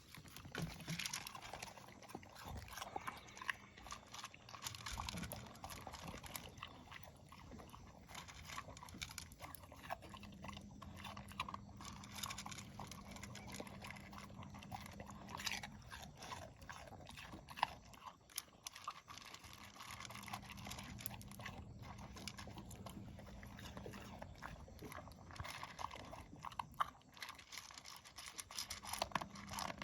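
A pet eating its dinner, with irregular crunching and chewing of its food.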